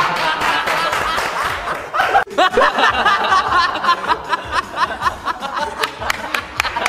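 A group of young men laughing. From about two seconds in, one voice gives a rapid, high-pitched run of "ha-ha-ha" laughs, about four a second, with background music underneath.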